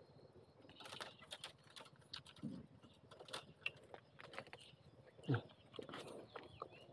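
Faint, irregular crackling and snapping of dry leaves and twigs in a bamboo clump, with a brief low falling sound about five seconds in.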